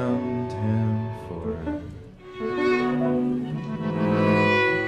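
Bowed string ensemble of violin, viola and cello playing long sustained chords. The sound thins out about two seconds in, then a new chord swells up and holds.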